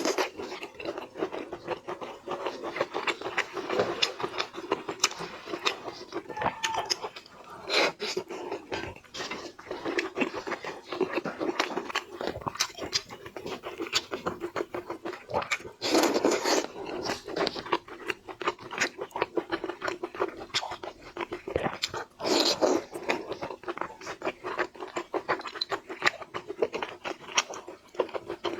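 Close-miked eating of seafood: a steady run of irregular crunching, chewing and wet mouth sounds, with a couple of louder crunches about halfway and about three-quarters through.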